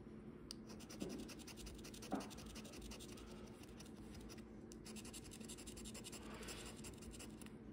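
Faint, quick strokes of scraping the coating off a California Lottery Loteria scratch-off ticket, with a short pause a little past halfway.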